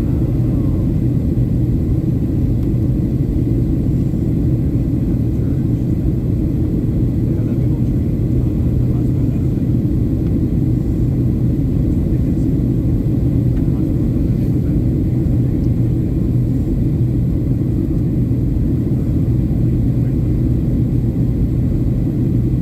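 Boeing 737-800 cabin noise heard from a window seat: a steady, loud low rumble of the CFM56 engines and airflow past the fuselage, with a constant low hum, during the descent toward landing.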